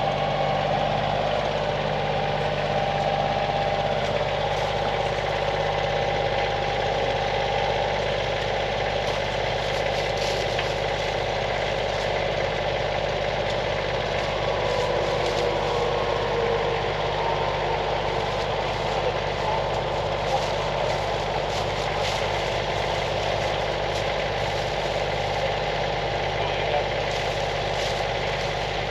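Kioti CK2610 compact tractor's three-cylinder diesel running steadily under load while it drives a PTO-powered 9-inch post hole digger auger into the ground. A whining tone sags in pitch about halfway through.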